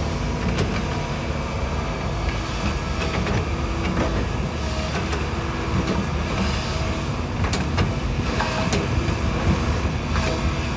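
Hydraulic excavator working soil, its diesel engine running with a steady low rumble, with scattered short metallic clanks and squeaks from the machine.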